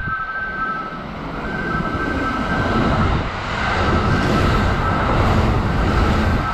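Kintetsu 80000 series "Hinotori" limited express electric train passing through the station close by without stopping, its rush of wheels and air building over the first few seconds and then staying loud. A high two-note electronic tone sounds on and off in the background.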